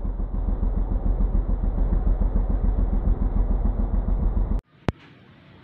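Engine of the vehicle being ridden in, heard from on board as a steady, pulsing low rumble. It cuts off abruptly about four and a half seconds in, and a single sharp click follows.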